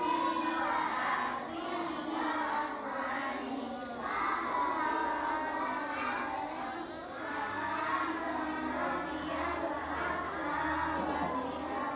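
A group of young children reciting the Arabic prayer words aloud together in a chant, voices overlapping in unison through the movements of the Muslim salat.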